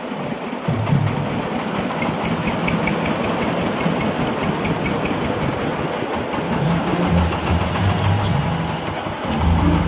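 Engine of a small vehicle running steadily while it drives, a continuous noisy mechanical sound.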